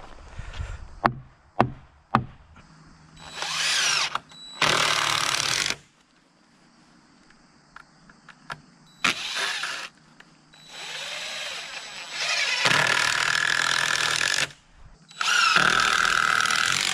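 A few sharp hammer knocks on timber, then a DeWalt cordless drill driving screws into the wooden framing in six runs of one to two seconds each, stopping between screws.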